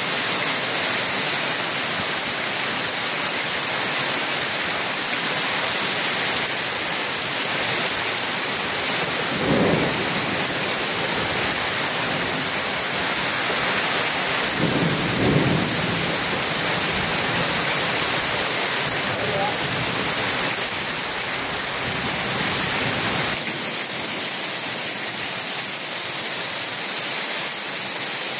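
Very heavy rain pouring down in a steady, loud hiss. Two short low rumbles come through it, about a third of the way in and again just past halfway.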